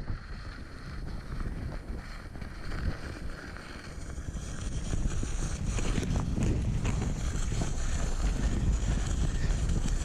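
Strong wind buffeting the microphone in gusts, a low rumble that grows louder about halfway through.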